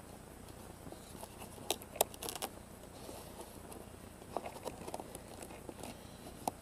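Faint clicks and rustles of hands handling the foam airframe of a flying-wing RC plane close to its onboard camera, with a few sharp clicks about two seconds in and another cluster around four and a half seconds in.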